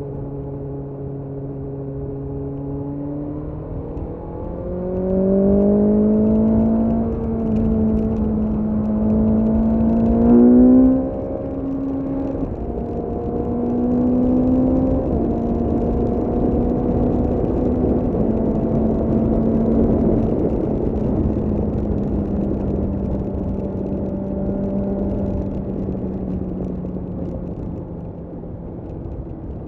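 BMW S1000R's inline-four engine pulling hard through the gears: the pitch climbs, drops at an upshift about seven seconds in, climbs again to its loudest at around ten seconds, then drops at a second upshift. It then holds a steady cruise with a rising rush of wind noise, easing off slightly near the end.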